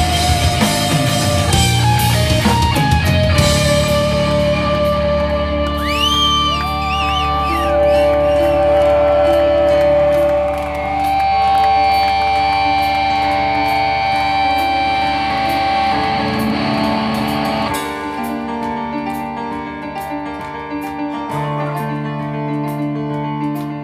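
Live rock band playing: electric guitars with long held and bent notes over bass and drums. About eighteen seconds in it drops to a quieter passage with a steady ticking beat.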